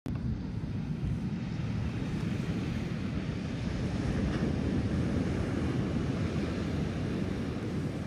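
Wind blowing across the microphone, a steady low rumble, with ocean surf washing on a sandy beach behind it.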